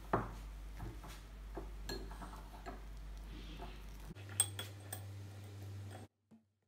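Kitchen utensil sounds as hummus is spatula'd onto a ceramic plate: a sharp clink just at the start, then light scrapes and taps of a silicone spatula against the plate and a steel mixer jar, with another sharp clink about four seconds in. The sound drops away near the end.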